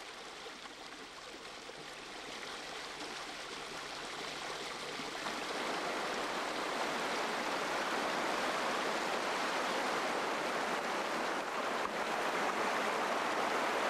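River water rushing and spilling over a rock bar in a steady rush, swelling louder over the first few seconds and then holding even.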